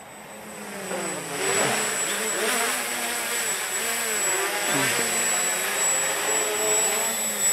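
Walkera Hoten-X quadcopter's electric motors and propellers buzzing as it flies close by. The sound grows louder over the first second or so as it comes near, and its pitch wavers up and down with the throttle.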